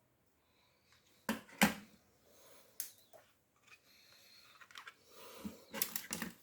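Plastic clicks and handling noise from a headband magnifier being fiddled with: two sharp clicks about a second and a half in, a single click near three seconds, then a run of softer clicks and rustling near the end.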